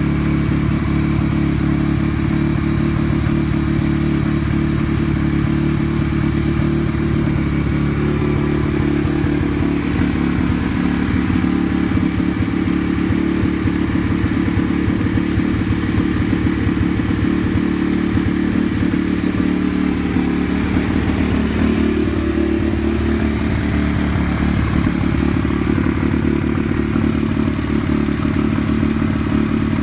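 Honda Dax custom's 140 cc YX single-cylinder four-stroke engine running at a steady idle through an aftermarket Stage Japan exhaust.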